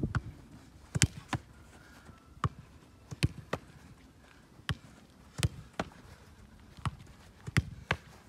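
Football being kicked in a passing drill: a dozen sharp kicks, often two touches about a third of a second apart, repeating every couple of seconds.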